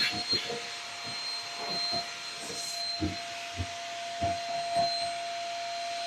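Shark Rocket vacuum running steadily with a constant whine, sucking lint out of a dryer's lint trap housing through a flexible rubber hose attachment. Occasional short knocks are heard through the suction noise.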